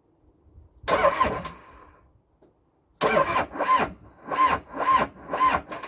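Caterpillar 206B wheeled excavator's diesel engine being turned over by its starter: a short burst about a second in, then from about three seconds in slow, uneven cranking in about five heavy pulses, without the engine firing. The cranking is slow because the batteries lack the power to start it.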